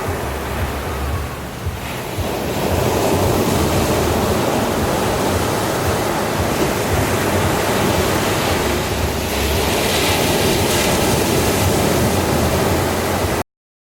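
Ocean surf washing onto a beach: a steady rush of breaking waves, a little softer about a second in and fuller from about two seconds on, with some wind on the microphone. It cuts off abruptly to silence just before the end.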